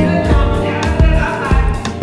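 A song with singing over a steady beat of about two drum strokes a second.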